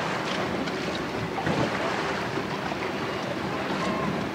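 Choppy lake water lapping against a small fishing boat, with wind on the microphone and a faint steady low hum.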